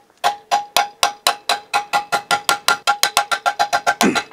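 Small sledgehammer tapping steadily on the end of a steel bushing-installer rod, driving a balance-shaft delete bushing into its bore in an Atlas engine block. The taps ring metallically and come about four to five a second, quickening slightly toward the end.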